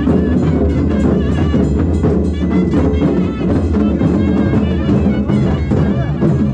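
Traditional procession band music: drums beaten in a fast, steady rhythm with a wavering melody line over them.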